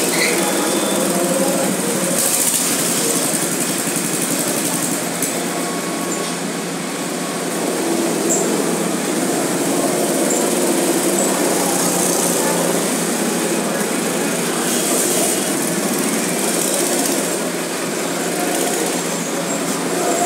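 Small go-kart engines running: karts idling close by while others lap the track, the sound rising and falling a little as they move around the circuit.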